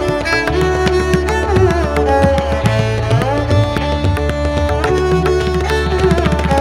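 Instrumental background music: a melody with sliding notes over a steady low bass, with frequent percussion strokes.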